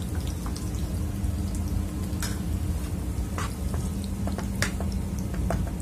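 Chopped tomatoes and onions sizzling as they sauté in a frying pan, stirred with a metal spoon that scrapes and clicks against the pan now and then. A steady low hum runs underneath.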